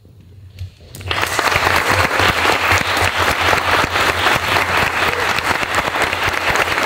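Audience applauding, breaking out suddenly about a second in and then holding steady.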